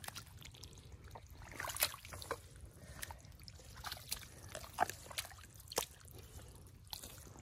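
Shallow muddy water on a drained pond bed: soft trickles and small splashes, with a scattering of short sharp ticks and drips.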